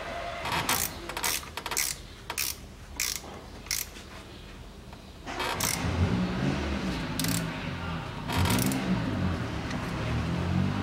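A ratchet clicking in short strokes as the transfer case fill plug is tightened. From about five seconds in, a louder low droning hum with a wavering pitch takes over.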